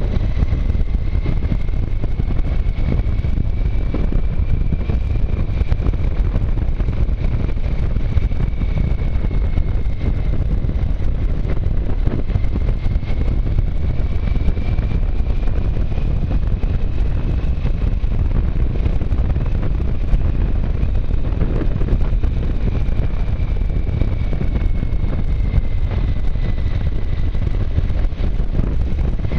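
Motorcycle riding along at steady speed: a constant low rumble of engine and wind rush on the microphone, with a faint high whine that drifts slowly up and down in pitch.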